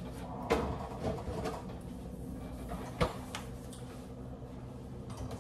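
A few knocks and clatters of things being handled on a kitchen counter, the loudest about three seconds in, over a steady low hum.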